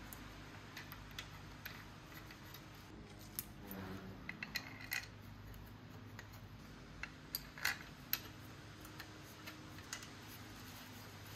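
Faint, scattered clicks and taps of small steel bolts and a socket tool being handled and fitted into an aluminium engine cylinder head, in a few small clusters, over a low steady hum.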